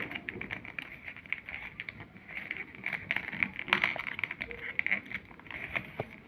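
Paper being handled: rustling and crinkling with many short, irregular clicks over a steady hiss.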